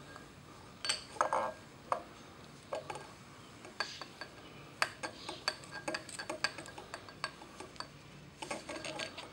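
Irregular small clicks and light metallic clinks as a replacement speedometer gauge is handled and fitted into its chrome handlebar housing.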